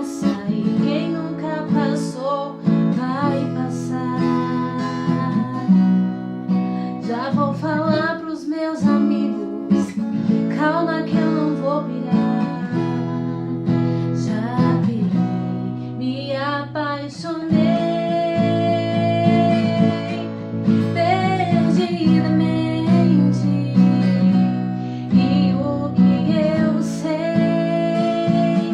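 A woman singing a sertanejo pop song to strummed acoustic guitar, her voice wavering on long held notes over sustained guitar chords.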